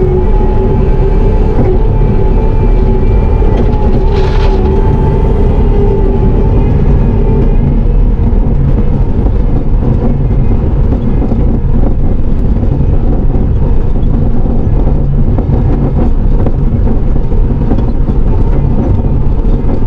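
Bobcat T650 compact track loader's diesel engine and hydraulics running loud and steady, heard inside the cab. A steady whine sounds over the first several seconds and fades out. A brief hiss comes about four seconds in.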